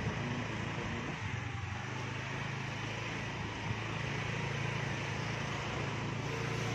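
Steady street traffic noise with the low hum of a running vehicle engine.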